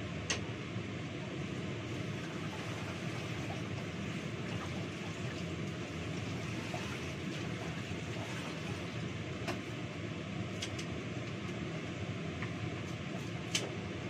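Steady rushing noise at a kitchen sink, with a few sharp clinks of kitchenware being handled: one just after the start and several more in the last few seconds.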